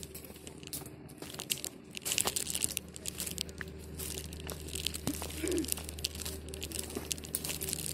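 Footsteps crunching and rustling on dry leaves, twigs and grass along a dirt trail, with dry grass stalks brushing past; irregular crackles, a little louder from about two seconds in.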